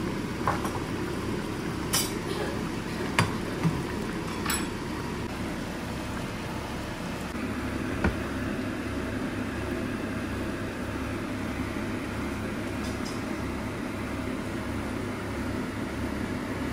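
A serving utensil clinking and tapping against the pan and a ceramic plate as braised tofu pieces are dished out: several sharp clinks in the first five seconds and one more about eight seconds in, over a steady low hum.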